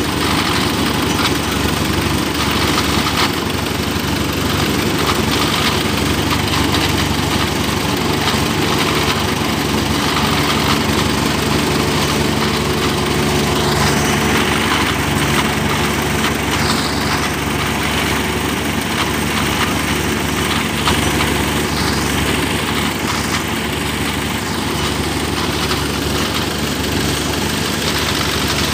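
Combine harvester engine running steadily at an even speed, with no revving.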